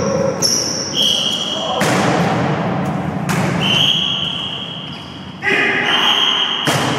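Rubber dodgeballs smacking against the walls and floor of a racquetball court: several loud impacts about a second and a half apart, each echoing off the bare walls. Short high squeaks from sneakers on the hardwood floor sound between the hits.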